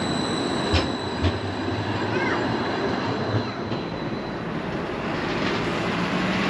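Edinburgh tram, a CAF Urbos 3 electric tram, passing close by: a steady rumble of steel wheels on rail with a high, steady whine, and two sharp clicks about a second in.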